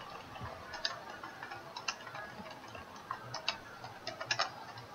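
Typing on a computer keyboard: quiet, irregular key clicks, a few each second.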